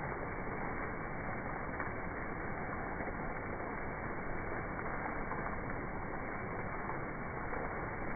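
Steady rainfall, an even hiss with no distinct drops or breaks.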